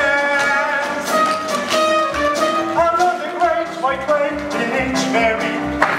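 Jazz dance music: sustained melody notes over a steady bass beat.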